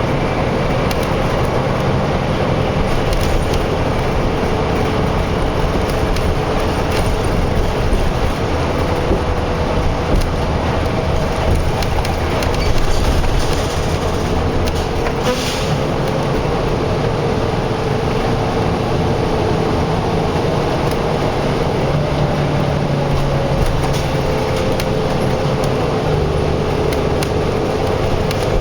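Steady low rumble of highway construction machinery and road traffic, with a faint engine whine that drifts slowly in pitch and a brief sharp clank about fifteen seconds in.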